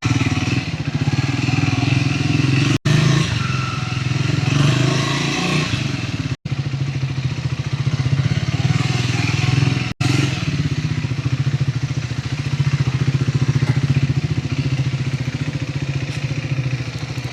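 Triumph Scrambler 400 X's single-cylinder engine running steadily through its stock exhaust, with a fast even firing beat. The sound cuts out for an instant three times.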